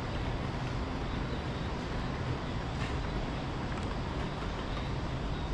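Steady low ambient rumble, even and unbroken, with no distinct events standing out.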